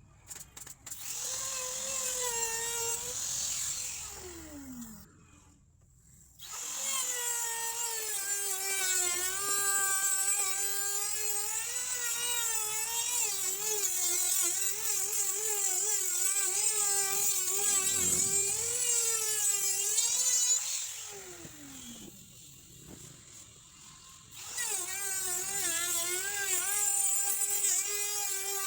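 Electric woodworking power tool running as it cuts a wooden door-frame piece, its motor whine dipping and recovering in pitch under load. It winds down twice and starts up again a couple of seconds later each time.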